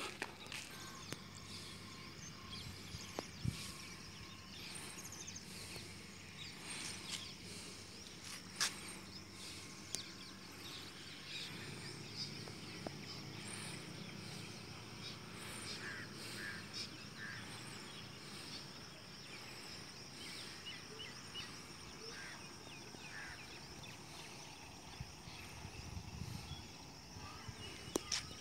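Quiet rural outdoor ambience: a steady high hiss, a low hum, and a few faint chirps around the middle. A few sharp clicks stand out, loudest in the first ten seconds.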